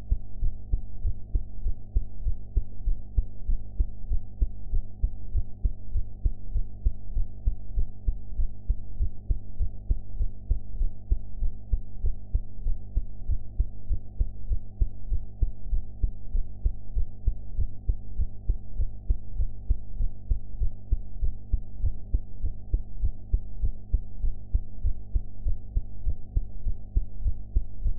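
A young woman's heartbeat recorded at the chest, beating steadily in a regular rhythm, with a steady low hum beneath the beats.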